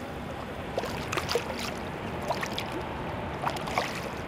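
Light splashing and lapping of lake water at the bank as a just-released fish swims off, with a few small scattered splashes over a steady background hiss.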